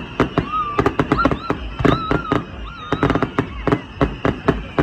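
Fireworks going off: a rapid, irregular string of sharp bangs, several each second.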